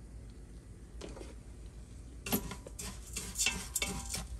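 Wooden spoon stirring browning rice in a stainless-steel Instant Pot inner pot. A little over two seconds in, a run of scrapes and clicks against the pot starts, with a light metallic ring.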